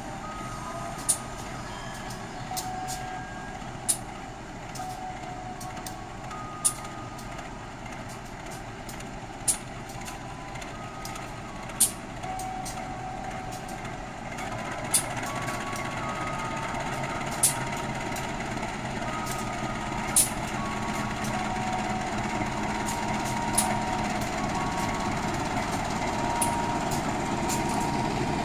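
Diesel-electric locomotive engines running at a station platform, growing louder about halfway through as a locomotive moves close by. Sharp clicks repeat about every three seconds over the engine sound, along with scattered short beeps.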